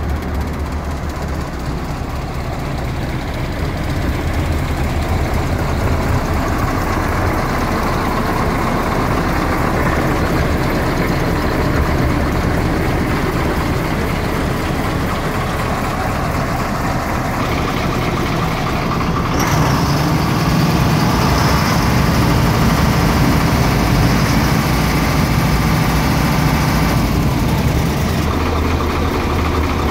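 Diesel V8 engine of an Iveco 260.30 6x6 tipper truck idling steadily. It grows louder about four seconds in and again near twenty seconds in.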